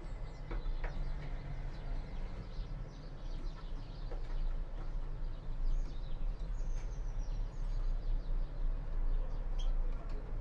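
Faint, scattered short chirps and calls of caged finches, a greenfinch and a canary, with a few light clicks, over a steady low hum.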